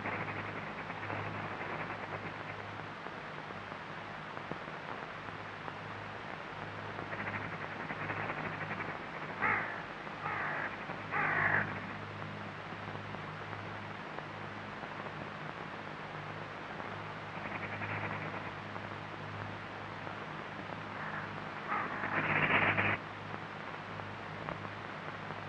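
Steady hiss and low hum of an old film soundtrack, with three short harsh sounds about a second apart near the middle and one longer one near the end.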